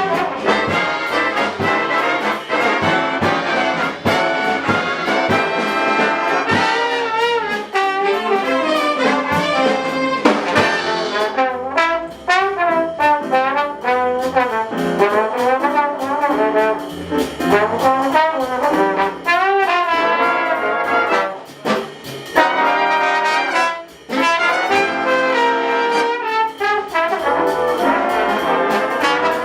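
A jazz big band playing a swing number, with the trumpet and trombone sections out front and drums keeping time.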